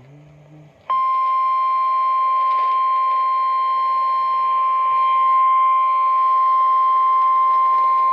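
Emergency Alert System attention tone: a single steady electronic tone that starts about a second in and holds at an even level. It signals that an emergency weather warning is about to be broadcast.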